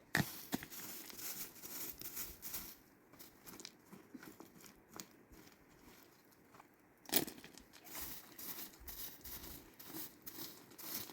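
Irregular rustling and crinkling handling noise with scattered light clicks, a sharp knock right at the start and another about seven seconds in.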